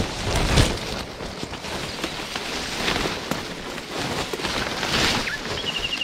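Someone pushing through a dense thicket of dwarf bamboo: leaves and stems rustling, crackling and brushing against the body in an irregular run. Near the end a small bird starts a rapid chattering call of short high notes.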